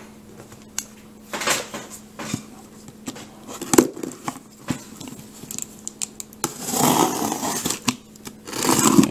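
Box cutter slicing the packing tape along the seams of a sealed cardboard case, in short scraping strokes with a longer stretch of cutting near the end.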